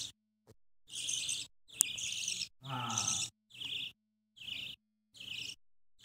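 Budgerigar chicks giving raspy begging calls while being hand-fed, about seven short bursts in quick succession, each around half a second long. A single sharp click comes about two seconds in.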